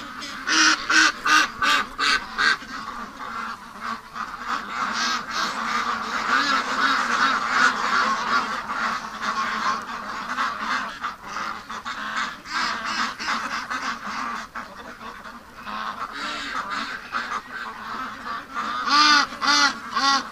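A large flock of domestic ducks, mostly Pekins, quacking together in a continuous chorus, with runs of louder quacks near the start and again near the end.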